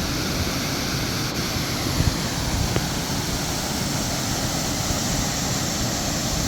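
Waterfall water rushing: a steady, even noise without any pitch or rhythm.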